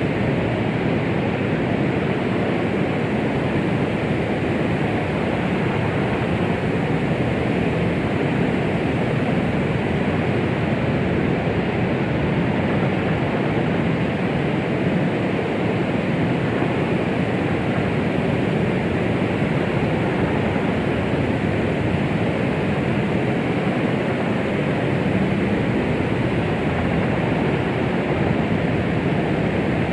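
Steady, unbroken noise played to soothe a baby, a soft even rush weighted toward the low and middle pitches rather than a bright hiss, with no heartbeat or other rhythm in it.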